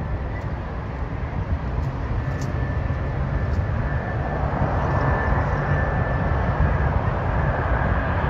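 Airbus A350-1000 jet on final approach, its Rolls-Royce Trent XWB engines at low approach power: a steady high whine over a low rumble, growing louder from about halfway through as the aircraft nears.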